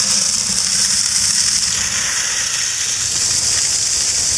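Cracked corn pouring from a feed sack into an orange plastic five-gallon bucket: a steady hiss of grain.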